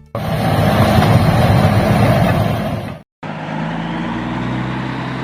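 Heavy diesel engine of a bulldozer running loudly and roughly. About three seconds in it cuts off abruptly and a steadier engine hum with a low drone follows.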